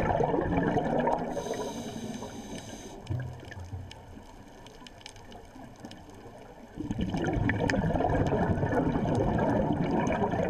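A scuba diver breathing through a regulator, heard underwater. Exhaled bubbles gurgle and rush, then a short hiss of inhaled air comes about a second and a half in. A quieter pause follows, and the next burst of exhaled bubbles starts near seven seconds.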